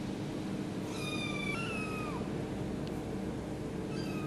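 Bengal kitten mewing: two high-pitched mews in quick succession about a second in, the second sliding down in pitch at its end, and a third starting near the end. A steady low hum runs underneath.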